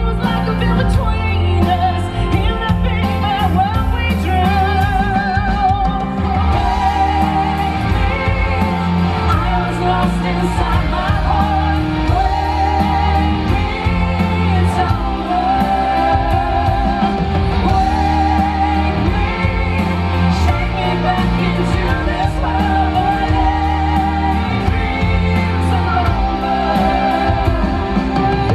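Live band playing: drums, bass, electric guitars and keyboards under female vocals singing long held notes with wide vibrato.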